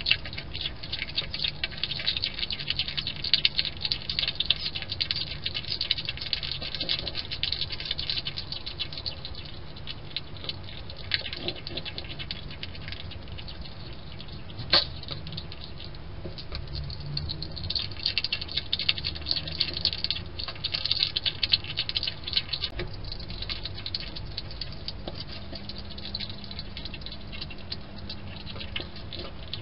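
Young European hedgehog chewing and crunching its food: rapid clicking crunches in long busy stretches, thickest in the first ten seconds and again later, with one sharp click about fifteen seconds in.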